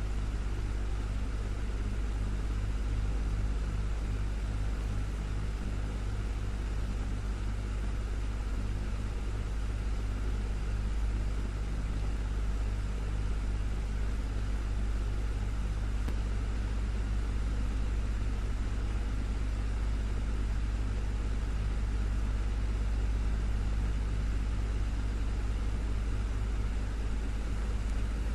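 Desktop fan running steadily: an even, unchanging low hum of the motor under a soft rush of air.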